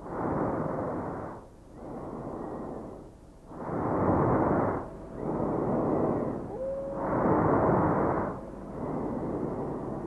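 Rhythmic whooshing noise in even strokes about every one and a half seconds, alternating stronger and weaker, like heavy breathing in and out, from the video sculpture's soundtrack.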